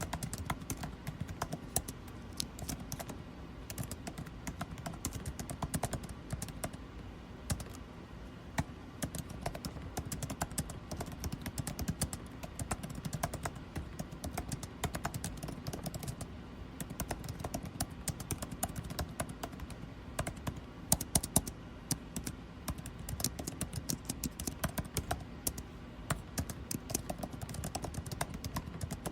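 Continuous typing on a computer keyboard, a fast, irregular stream of key clicks, over the steady low hum of air conditioning.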